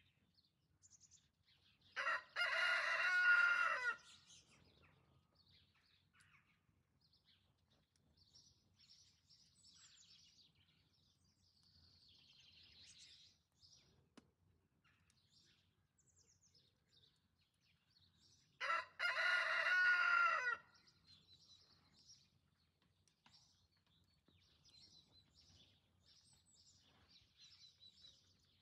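A rooster crowing twice, each crow about two seconds long, the second coming about seventeen seconds after the first. Small birds chirp faintly in between.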